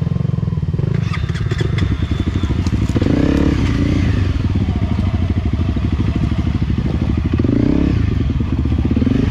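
Enduro dirt bike engine running steadily at low speed, with a few sharp clicks about a second in and the engine swelling briefly twice.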